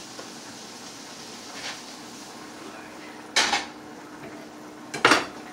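Metal cooking utensils and cookware clattering in a kitchen: a sharp clatter about three and a half seconds in and a quick double clatter near the end, over a steady low background.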